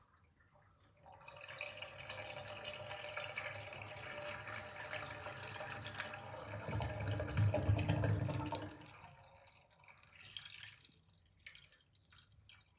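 Bathtub drain gurgling as water runs out past a sink plug. It starts about a second in, swells into a deeper, louder gurgle two thirds of the way through, then dies away into a few small gurgles and drips.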